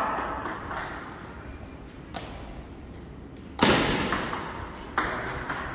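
Table tennis ball knocking off paddles and the table during a rally: a handful of sharp clicks, the two loudest about three and a half and five seconds in, each with a short echo from the hall.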